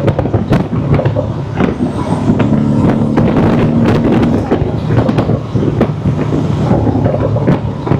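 Porsche 718 Cayman's turbocharged flat-four engine running while driving, heard from inside the cabin, with intake and turbo noise from its aftermarket RaggDoll Motorsports turbo inlet pipe. A steady engine note holds through, a slightly higher tone rises above it about two seconds in for a couple of seconds, and frequent short clicks or knocks sound throughout.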